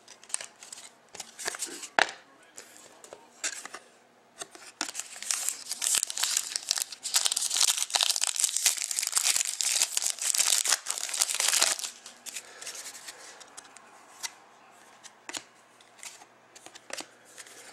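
A trading-card pack's wrapper being torn open and crinkled: a dense rustling hiss that builds for about seven seconds in the middle and stops suddenly. Before and after it come scattered light clicks and flicks as the cards are handled.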